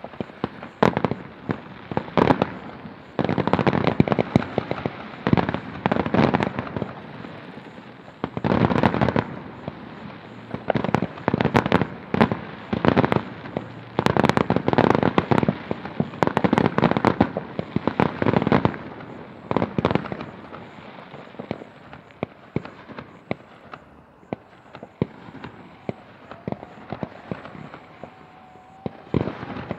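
Fireworks exploding in a rapid barrage of sharp bangs and crackles, densest through the first two-thirds, then thinning to scattered pops.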